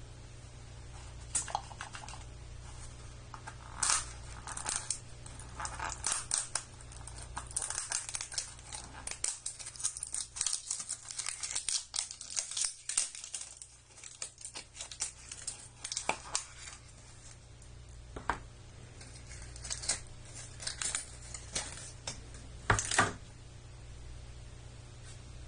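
Plastic shrink wrap being picked at, torn and peeled off a Fash'ems blind capsule, crinkling irregularly, with sharp clicks and taps of the plastic capsule in the hands; a loud pair of clicks comes near the end as it is opened.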